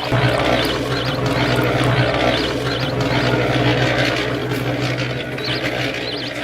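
A small motor running with a steady hum and a rushing noise over it.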